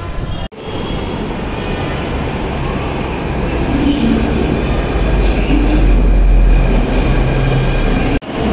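Jaipur Metro train pulling into an elevated station platform: its rumble and faint motor whine grow louder, loudest about six seconds in, as the train slows to a stop.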